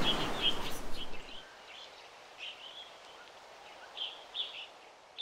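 Small bird chirping in short repeated calls over steady outdoor background noise; the background noise drops away about a second and a half in.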